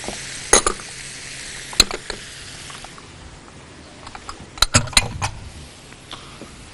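Utensils clinking and knocking against a pan a few times, sharp clicks about half a second in, near two seconds and a quick cluster around five seconds, over a faint frying hiss from the meat filling that fades out about halfway.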